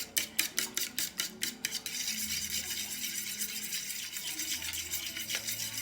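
A utensil beating egg and milk together in a bowl: quick rhythmic strokes, about five a second, then a steady faster scraping churn from about two seconds in.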